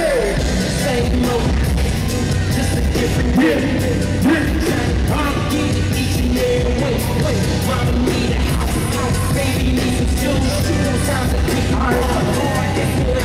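Loud hip-hop music with a heavy, steady beat playing through the arena's sound system, with voices over it.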